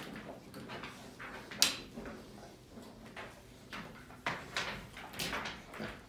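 Faint sounds of pet pigs coming indoors: one sharp clack of the pet-door flap about a second and a half in, then a few short, soft snuffling noises from the pigs near the end.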